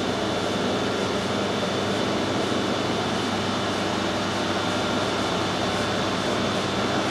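Metal lathe running steadily, its motor and gearing giving an even mechanical hum with a faint high whine.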